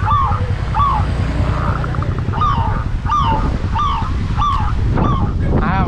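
A bird calling over and over: about seven short honk-like notes, each rising then falling in pitch, over a low rumble of wind on the microphone.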